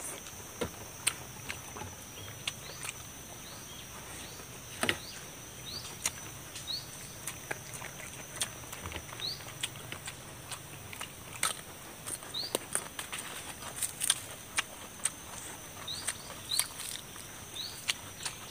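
Close mouth and hand sounds of eating roast chicken with the fingers: scattered sharp clicks and smacks of chewing and pulling at the meat. Behind them a steady high insect drone and small rising bird chirps every second or so.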